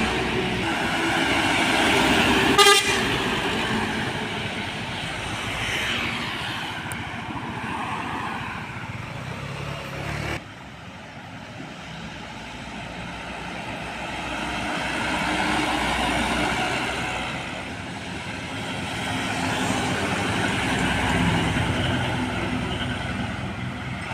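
Heavy trucks driving past on a road with horns sounding, and a loud sharp knock about three seconds in. The level drops suddenly a little past ten seconds, then traffic noise builds up again.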